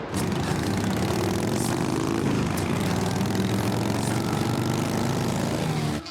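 A steady engine drone with a low pitched hum that drifts slightly. It starts abruptly and cuts off suddenly about six seconds later.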